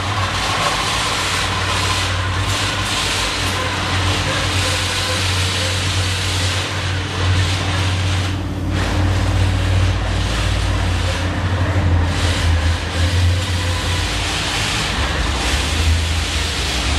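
Heavy machinery running steadily in an underground oil shale mine: a constant low hum under a loud, even mechanical noise that swells a little now and then.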